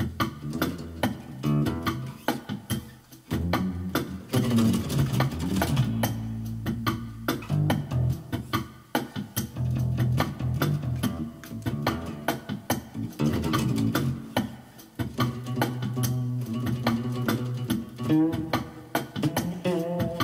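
An improvised bass line on a short-scale Ibanez Mikro electric bass, played over a steady drum beat.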